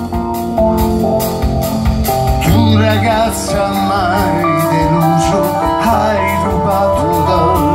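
Live band playing with a vibrato singing voice over upright double bass, drum kit with evenly repeated cymbal strokes, and keyboard.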